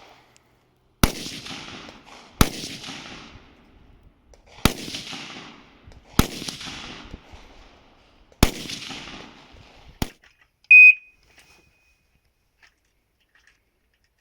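Rifle firing six single shots at irregular intervals over about nine seconds, each crack followed by an echoing tail, the last shot quieter. Just after the last shot comes a short, loud, high-pitched electronic beep.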